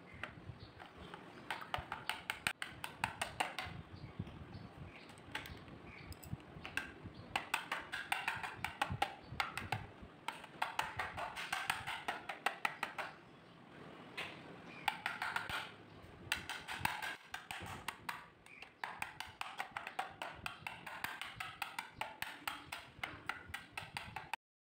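Pencil drawing on a notebook page: quick scratching strokes and small taps of the lead on the paper, coming in bursts of a few seconds with short pauses. It stops abruptly just before the end.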